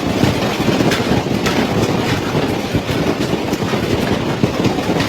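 Hailstorm: a dense, loud clatter of hailstones hitting hard surfaces, with many sharp knocks through a steady rushing din.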